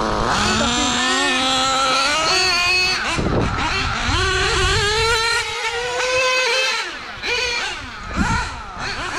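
Nitro (glow-fuel) engines of 1/8-scale radio-controlled GT cars running on track, their revs rising and falling again and again as the cars accelerate and lift through the corners.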